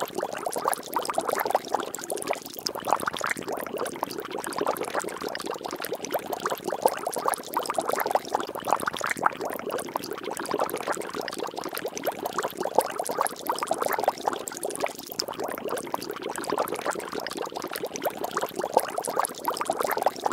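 Water bubbling and splashing steadily: a dense, even run of many small pops and splashes.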